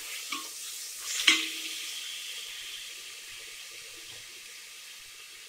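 Chopped tomatoes sizzling as they hit hot mustard oil with onions in a steel pot, a steady hiss that slowly dies down. A spoon clanks against the pot about a second in as they are stirred, with a lighter tap just before.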